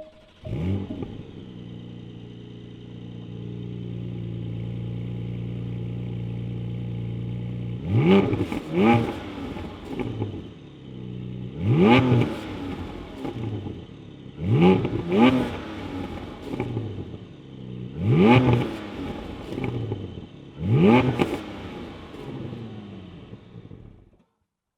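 Porsche 718's 4.0-litre flat-six engine starting with a flare, then idling. It is then blipped up to at most 5,000 rpm six or seven times, roughly every three seconds, some blips in quick pairs. It shuts off suddenly near the end.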